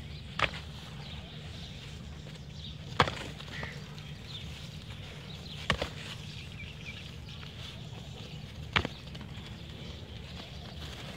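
Two goats butting heads: four sharp cracks of head striking head a few seconds apart, the third a quick double knock.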